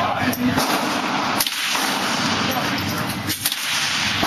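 Rifle shots: three sharp cracks, the first faint, spaced about one and two seconds apart, over a steady rushing background noise.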